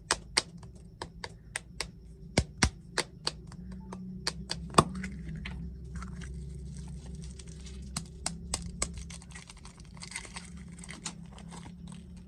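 Hands handling snack packaging: sharp taps and clicks, a few a second, then from about five seconds in a stretch of crinkling and rustling with scattered clicks, as of a wrapper being unwrapped.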